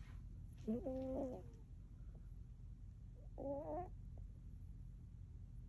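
A sleeping cat snoring: two short snores with a clear pitch, each about half a second long and about two and a half seconds apart, the second one higher.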